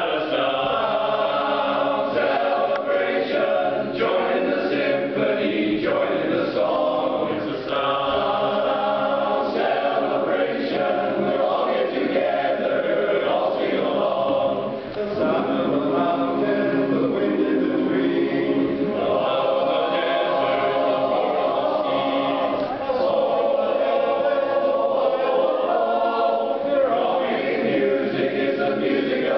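Men's barbershop chorus singing a cappella in close four-part harmony.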